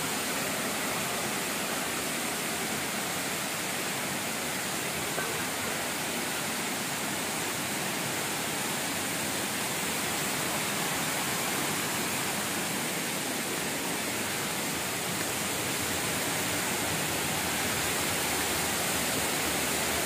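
Steady rush of a waterfall's falling water, growing slightly louder near the end.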